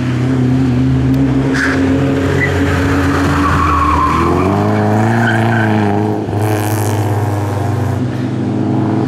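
Two classic BMW rally cars driven hard through a tight bend one after the other, first an E30 M3, then a BMW 2002, engines at high revs; about four seconds in the engine note changes and the pitch climbs as the second car accelerates out. Some tyre squeal in the middle.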